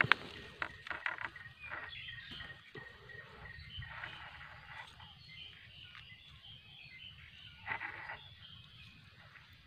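Dry leaf litter rustling and crackling as a hand brushes it aside on the forest floor, in short bursts near the start and again near the end. Faint chirping calls go on in the background.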